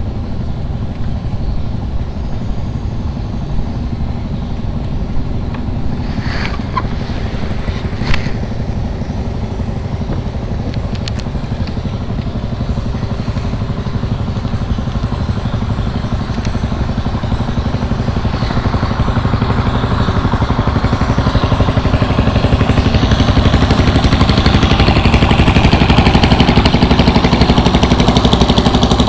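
Engine of a passing wooden fishing boat running with a fast, even pulse, growing louder from about two-thirds of the way in as the boat comes closer. Two sharp clicks a little after six and eight seconds in.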